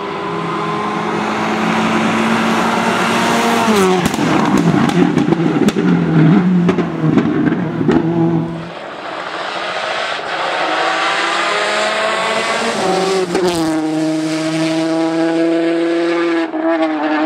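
Rally car engines running hard at high revs as cars pass on the stage. About four seconds in comes a rough stretch of sharp cracks and pops. From about thirteen seconds a second car's engine comes in loud and steady.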